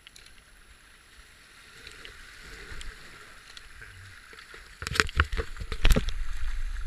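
Whitewater rushing past a racing kayak, heard from a camera on the boat: a steady hiss at first, then from about five seconds in much louder, irregular splashes and knocks as the kayak hits rougher water in the rapid, with a low rumble underneath.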